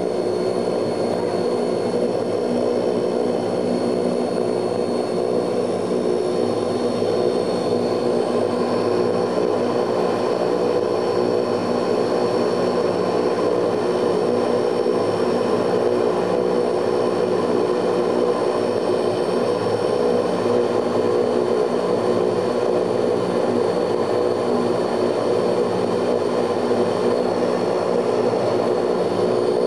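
Ilyushin Il-18's four Ivchenko AI-20 turboprop engines running steadily, heard inside the passenger cabin: an even propeller drone of several steady tones with a thin high whine above it.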